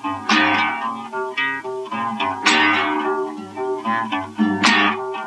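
Acoustic guitar playing on without singing: a strummed chord about every two seconds, with picked single notes in between.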